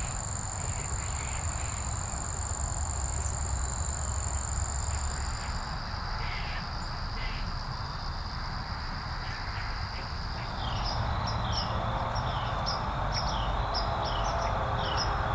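Outdoor ambience of insects trilling steadily at a high pitch, with scattered bird calls. From about ten seconds in, a quick falling chirp repeats over and over, a little more than once a second.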